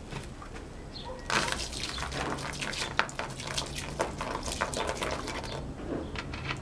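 Water poured from a clear plastic container onto a small pile of burning paper on dirt ground, splashing for about four seconds from about a second in, putting the fire out.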